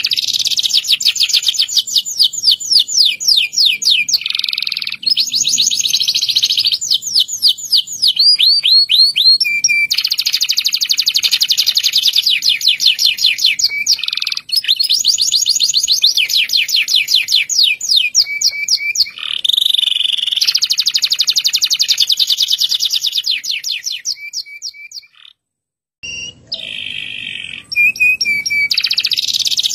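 Domestic canary (Indonesian local canary) singing in full voice: long rolling trills of fast repeated high notes, switching from one trill to the next every few seconds. The song breaks off for about a second near the 25-second mark and then resumes.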